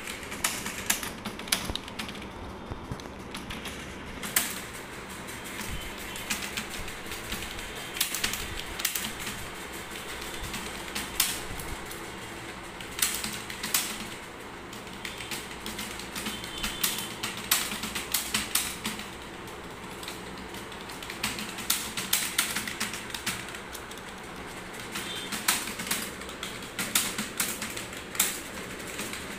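Fast, continuous typing on a ProDot computer keyboard: a dense run of key clicks with louder single clacks standing out every second or two.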